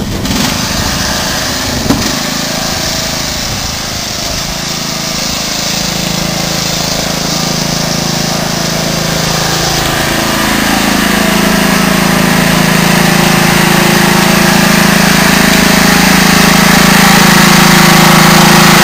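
Riding lawn mower engine running steadily as it tows a loaded firewood cart, growing louder as it comes closer. A short click sounds about two seconds in.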